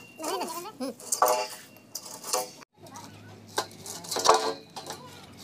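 Voices talking, with light metallic clinks scattered between them; the sound cuts out for a moment about two and a half seconds in.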